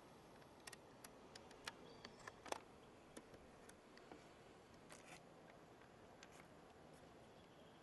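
Near silence broken by a scattering of faint, sharp clicks and ticks from handling the camera, the loudest about two and a half seconds in.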